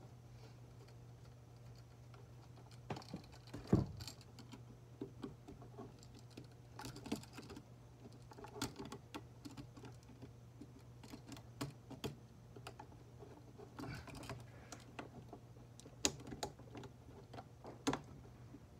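Irregular small clicks and taps of an electrical outlet and its copper wires being handled and fitted over a plastic electrical box, with one louder knock about four seconds in. A steady low hum runs underneath.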